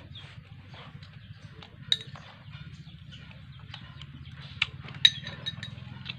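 Metal spoons clinking against dishes during a meal: a few sharp clinks, the loudest about five seconds in, followed by small ticks, over a low steady hum.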